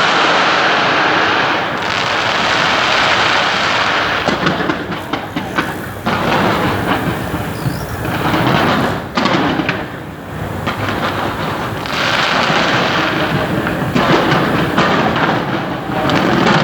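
Fireworks display: a dense, rumbling roar of explosions that swells and ebbs, with bursts of crackling from about 4 to 10 seconds in.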